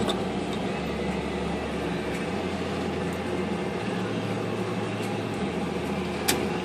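IBM Selectric typewriter's motor running with a steady hum, its cracked center pulley hub freshly reinforced. A click comes at the start and a sharper, louder click about six seconds in.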